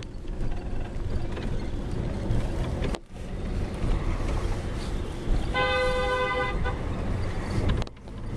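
Steady road and engine rumble of city traffic, heard from a moving car. About two-thirds of the way through, a car horn sounds once and is held for about a second.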